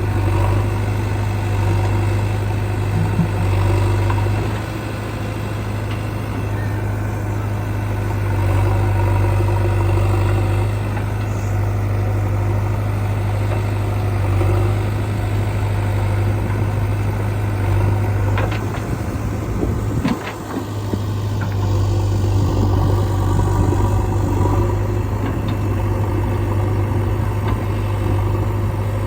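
Heavy diesel machinery running steadily at a low, even drone, with a few short sharp knocks a little past the middle.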